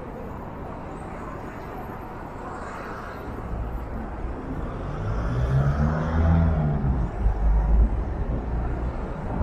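City street traffic: a motor vehicle passes close by, its engine rising and then falling in pitch between about five and eight seconds in, over a steady background of traffic noise.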